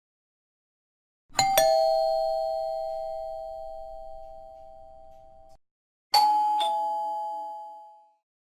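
Doorbell ding-dong sound effect: a two-note chime, high then lower, played twice. The first sounds about a second in and rings away slowly for about four seconds; the second comes near the end and fades out more quickly.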